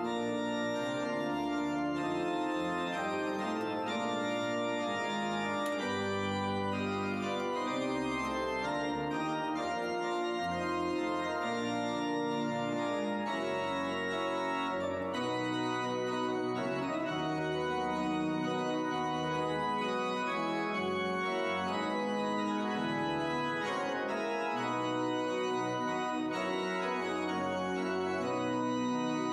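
Church organ playing a steady piece in full sustained chords over a moving bass line, the chords changing every second or so.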